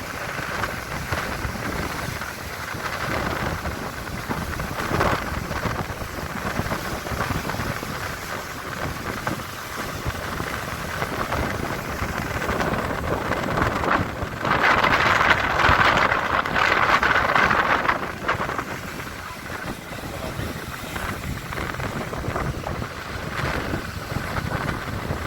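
Sea waves surging and breaking at high tide, with wind buffeting the microphone. The surf swells louder for about four seconds around the middle.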